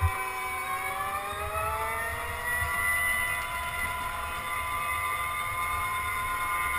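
Go-kart motor heard from the driver's seat, its whining tone falling as the kart goes through a curve, then rising as it accelerates and holding on the straight. A brief low thump right at the start.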